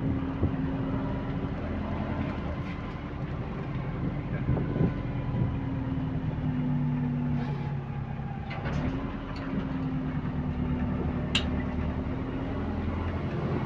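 Bus engine running with a leaking exhaust. The engine note steps down about six seconds in and picks up again around nine seconds, with a few sharp clicks and rattles over it.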